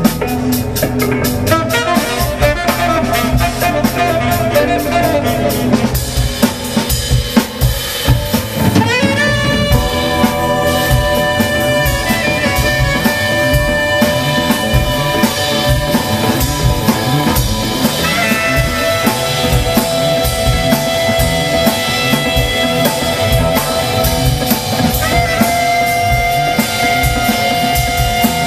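Live jazz-funk band: the drum kit plays busy, rapid figures. From about nine seconds in, a saxophone plays long held notes over the drums, sliding up into a new note twice more later on.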